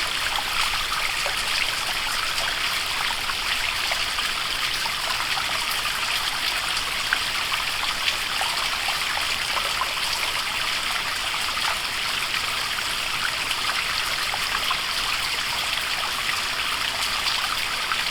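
Waterfall: water falling and splashing steadily, an even hiss with many small splashes and little deep rumble.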